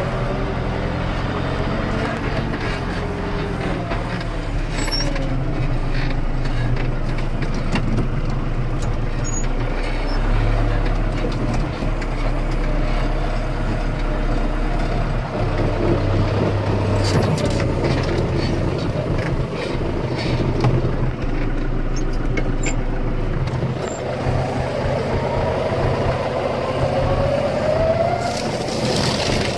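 John Deere 6320's four-cylinder diesel engine running, heard from inside the tractor cab, its pitch shifting up and down as it works. A rising whine comes in over the last few seconds.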